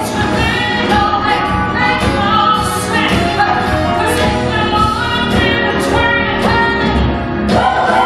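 Live musical theatre song: a female lead and ensemble voices singing together over band accompaniment with a steady beat.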